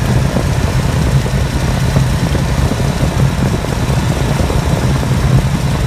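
408 Clevor V8 idling steadily with the ignition locked at a fixed 20 degrees of advance for a timing check, freshly rebuilt with new rings and bearings.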